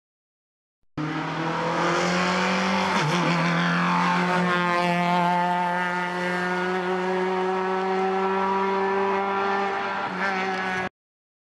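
A Peugeot hill-climb race car's engine running hard as it comes up through a bend. The note wavers briefly, then rises steadily as the car accelerates and holds high. The sound starts abruptly about a second in and cuts off abruptly near the end, with silence at both ends.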